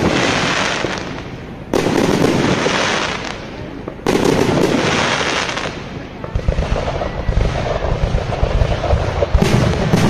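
Aerial fireworks shells bursting with sharp bangs, one about a second and a half in and another about four seconds in, each dying away over a couple of seconds. From about six seconds a rapid run of pops over a low rumble follows, with another loud burst near the end.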